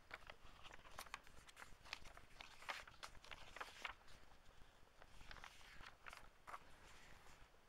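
Paper pages of an old hardback book being flipped through by hand: a run of faint, crisp rustles and flicks, with a short lull in the middle, dying away just before the end.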